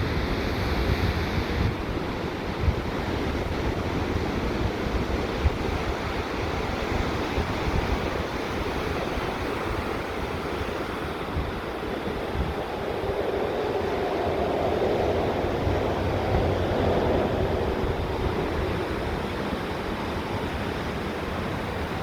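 Ocean waves breaking and washing on a beach, with wind buffeting the microphone in low rumbling gusts. A wave swells louder about two-thirds of the way through.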